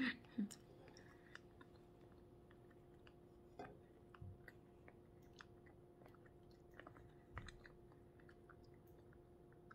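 Quiet chewing with the mouth closed: a few faint, soft crunches and mouth clicks scattered through, over a faint steady hum.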